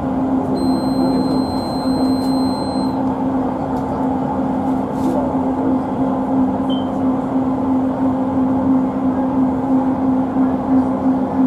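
LRT Jabodebek light-rail train running along its elevated track, heard from inside the front cab: steady rumble of the wheels on the rails with a constant low hum.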